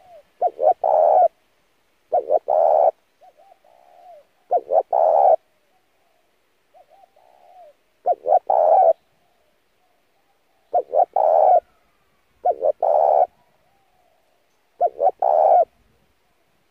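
Spotted dove cooing: seven loud phrases, each two quick notes and then a longer held note. Softer quavering notes come between some of the phrases.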